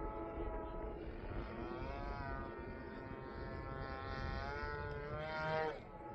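Radio-controlled Mad Stick model airplane's motor and propeller running through aerobatic manoeuvres, the pitch rising and wavering as the throttle changes. It is loudest in a final climb and then drops off sharply as the throttle is cut.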